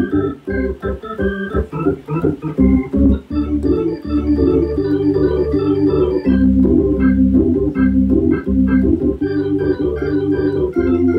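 Instrumental music: steady low chords under a line of short, quick notes.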